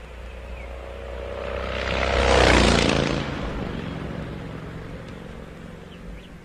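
An engine passing by: it swells to a peak about two and a half seconds in and then fades, its pitch dropping as it goes past.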